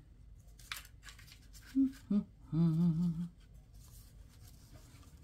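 A woman humming a few notes to herself: two short hums, then a longer wavering hum of about a second. Faint rustling of paper tickets and tags being sorted in a plastic tub can be heard around it.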